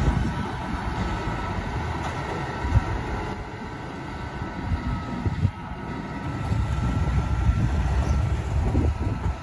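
Diesel engines of farm machinery running, a low, uneven rumble with a faint steady whine above it.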